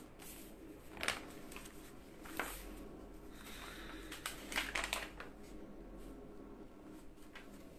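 Sheets of printed paper handled and rustled close to the microphone: short rustles about a second in and again around two and a half seconds, then a quick cluster around four to five seconds in, over a faint low hum.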